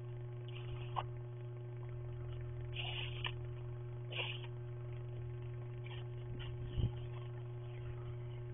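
Steady electrical hum from a security camera's microphone, with a few short, faint brushing and scraping sounds of snow being cleared and a dull thump about seven seconds in.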